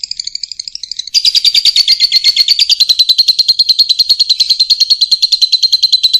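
A lovebird sings a long, unbroken chatter ('ekek panjang'): rapid high-pitched ticking notes, about a dozen a second. It gets much louder about a second in.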